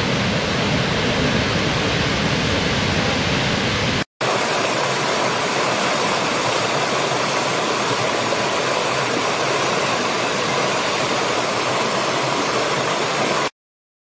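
A large waterfall rushing, a heavy steady wash of water with a deep rumble. After a sudden cut about four seconds in, a small stream runs over rocks: a steady, brighter rush with less rumble, which stops abruptly near the end.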